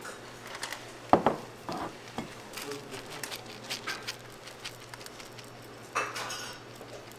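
Kitchen utensils and dishes being handled: scattered clicks, clinks and knocks, the sharpest about a second in.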